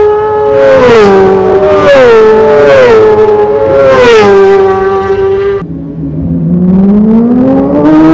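Racing motorcycles at full throttle passing close one after another, about one a second, each engine note falling in pitch as it goes by. After a sudden cut about two-thirds through, a single engine note climbs steadily as another bike accelerates up the road.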